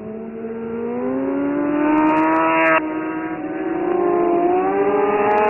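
Racing superbike motorcycle engines accelerating hard out of a corner and growing louder. The pitch climbs, drops sharply at an upshift nearly three seconds in, then climbs again.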